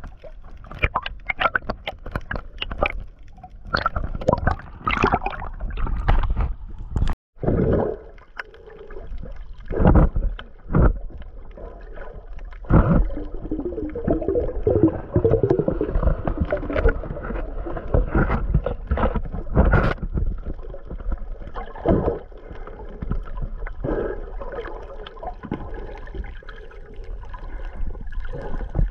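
Water sloshing and gurgling over a GoPro Hero 8 as it moves through the surface and underwater while snorkeling, with many irregular knocks and splashes against the camera over a low rumble. The sound cuts out for a moment about seven seconds in.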